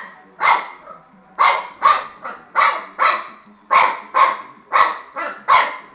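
Shar-pei puppy play-barking at a tennis ball: about ten short, sharp barks, several coming in quick pairs.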